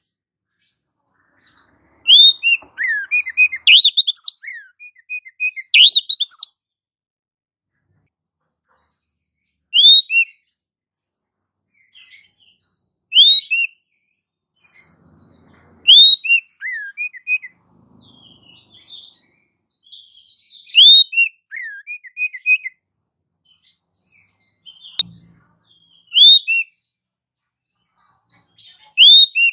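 Small songbird calls used as a bird-trapping lure (pikat): loud phrases, each opening with a sharp down-slurred note and running into quick chirps, repeating every few seconds.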